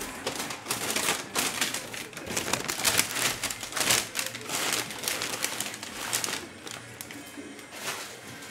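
Packing paper and a plastic bag being handled, rustling and crinkling in a run of irregular crackles and scrapes that thins out over the last couple of seconds.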